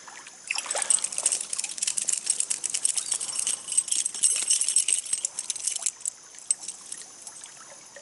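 Water splashing and dripping in rapid, irregular spatters for about five seconds, most likely a small caught trout thrashing at the surface, dying down to the steady trickle of the stream near the end.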